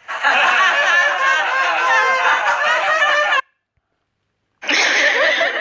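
Crowd laughing, a recorded sound-effect clip that cuts off abruptly about three and a half seconds in. After a second of silence, another crowd-laughter recording starts near the end.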